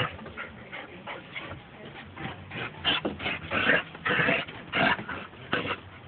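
A Dalmatian–Giant Schnauzer cross dog making short, excited sounds in quick bursts during play, busiest in the middle.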